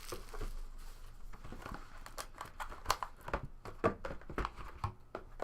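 Trading-card box and its wrapping being handled and opened: soft crinkling with scattered small clicks and taps.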